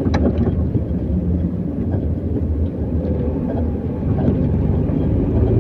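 Car driving on a rough road, heard from inside: a steady low road and engine rumble with a few faint knocks from bumps.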